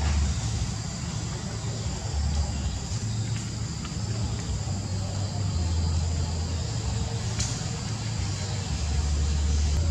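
Wind buffeting the microphone: a low rumble that swells in gusts several times, over a steady thin high-pitched hiss, with a few faint clicks.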